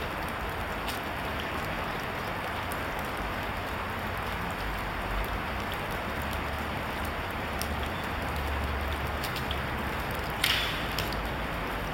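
Steady hiss throughout. About ten and a half seconds in comes a sharp snap with a short ring: a Japanese longbow (yumi) string released from full draw.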